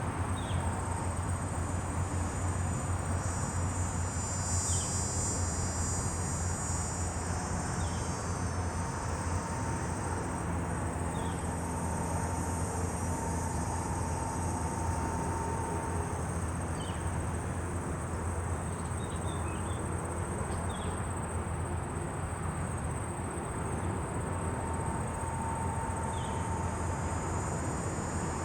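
Rural daytime ambience: a steady high-pitched drone of crickets or similar insects, with brief high chirps every few seconds over a steady low rumble.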